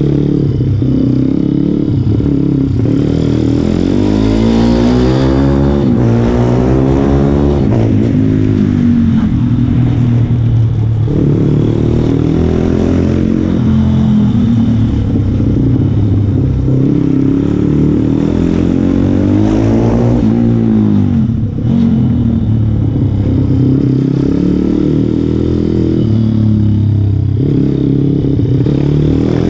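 A small motorcycle engine revving hard through a lap. The revs climb and fall away again several times, with the biggest drops at about 7 s and about 20 s.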